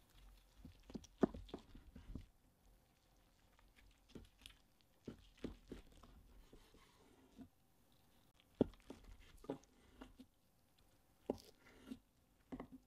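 Chef's knife cutting through crisp roasted chicken skin and meat and knocking on a wooden cutting board: faint crunches and taps in several short groups of cuts.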